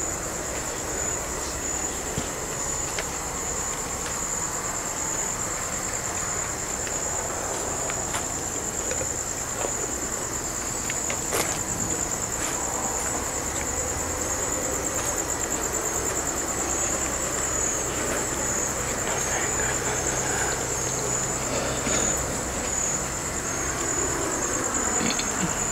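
Crickets chirping in one steady, high-pitched trill that pulses slightly, over a low background hiss with a few faint clicks.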